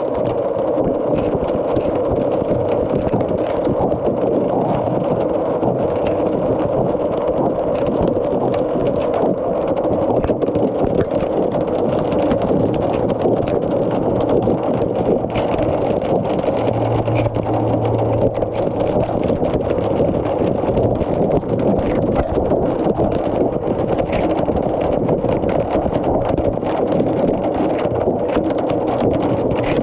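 Hailstorm: a steady, loud, dense roar of hailstones pelting down, full of sharp little clicks of individual stones striking, with a faint low hum underneath that swells briefly about halfway through.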